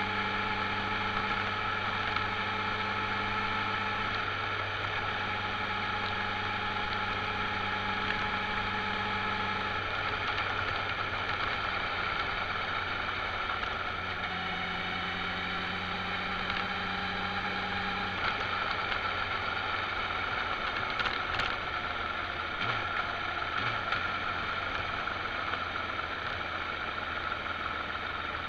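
Motorcycle engine running at road speed with wind and road noise, mostly steady, with small changes in pitch now and then.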